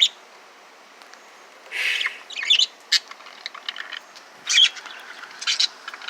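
Caged pet birds calling in short, high-pitched chirps and squawks, one cluster about two seconds in and another about four and a half seconds in.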